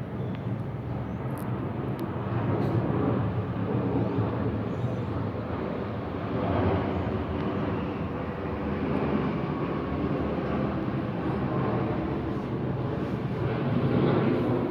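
Jet noise from a Boeing 777-300ER's GE90 engines on landing approach: a steady rushing sound that grows louder over the first few seconds and stays loud.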